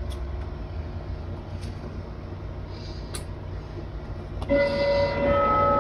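Hermle-movement grandfather clock starting its chime on the hour: about four and a half seconds in, several ringing chime notes sound and hang on. Before that there is only a low steady rumble, close breathing and a few faint clicks.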